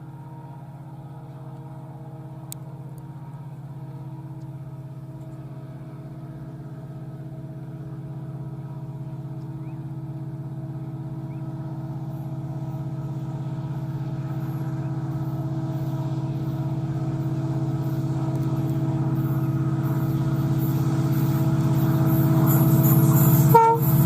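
Diesel locomotive engine approaching: a steady low drone that grows gradually louder, with a higher rushing noise building in the second half and a brief break in the sound just before the end.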